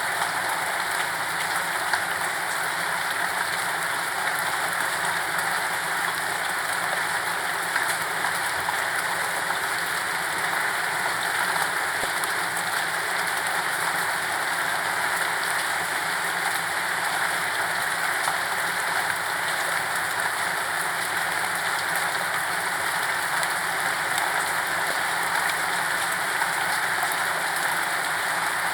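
Steady rain falling without pause, an even hiss with occasional individual drops ticking through it.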